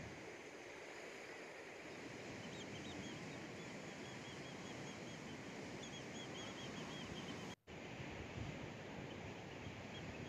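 Steady, low wash of sea and light wind below a cliff, with faint strings of high, rapid bird chirps from a couple of seconds in. The sound cuts out completely for a moment near the end.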